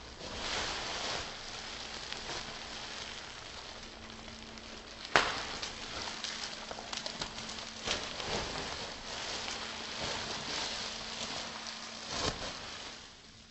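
Plastic bubble wrap being twisted and wrung by hand: a continuous crinkling crackle with a few sharp pops of bursting bubbles, the loudest about five seconds in.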